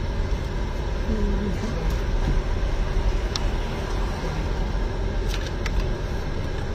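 Steady low rumble of car cabin noise, heard from inside the car, with a few small clicks partway through.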